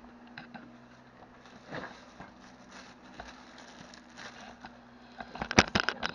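Plastic wrapping on the bench's metal parts rustling and crinkling as they are handled, with scattered light clicks and a burst of loud crackles and knocks near the end.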